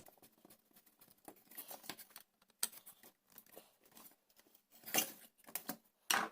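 Scattered small clicks and scrapes of hand tools and metal parts being handled, as a strip and nut are fitted to a charger's heat sink. The sharpest click comes about two and a half seconds in, with a short cluster near five seconds and another just before the end.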